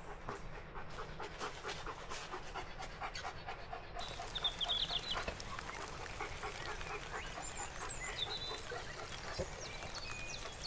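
A dog panting fast, about four breaths a second, most plainly in the first few seconds. Birds chirp over it from about four seconds in.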